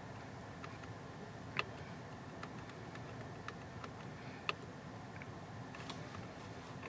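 Car interior control buttons clicking as they are pressed to page through the instrument-cluster display: about ten short, soft clicks at irregular intervals over a faint steady hum.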